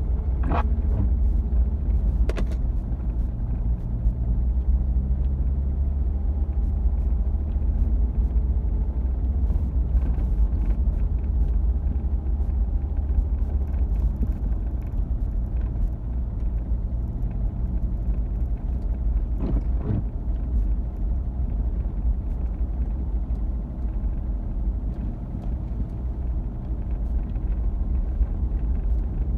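Car driving slowly on an unpaved forest road: a steady low engine and road rumble, with a few sharp knocks, one near the start and one about two-thirds of the way in.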